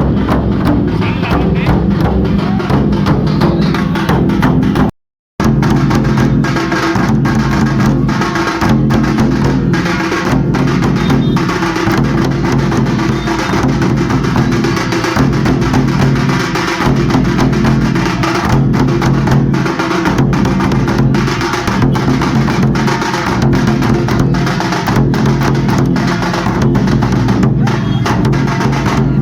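Halgi frame drums struck with sticks, played loud in a fast, driving festival rhythm. The sound cuts out completely for a moment about five seconds in.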